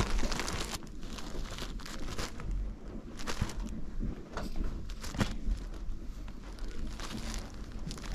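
Plastic packaging of bed sheets crinkling and rustling as it is handled, in irregular short crackles.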